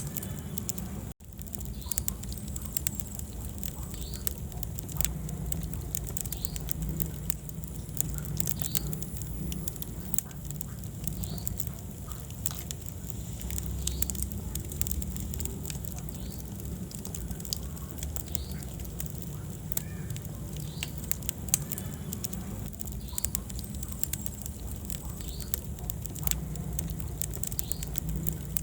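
Wood fire in a fireplace burning with steady crackling and popping over a low rumble of the flames. The sound cuts out for a split second about a second in.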